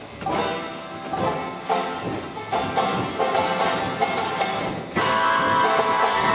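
Live acoustic folk band playing: picked and strummed acoustic guitar with accordion and upright bass, notes falling about every half second. About five seconds in the music steps up suddenly, louder and fuller, with held chords.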